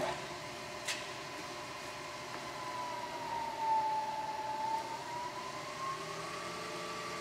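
First LC-185VS milling machine's 3 hp variable-speed head running: a steady whine that sinks slowly in pitch midway and climbs back, as the spindle speed is varied. A faint click about a second in.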